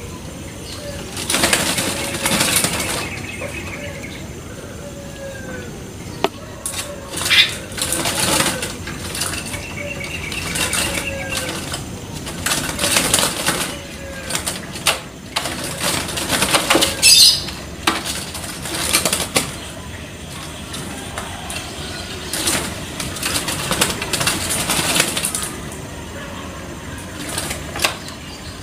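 Three-month-old puter (Barbary dove) chick cooing softly in short arched notes about once a second, mostly in the first third. Louder whooshing noise bursts come and go over it.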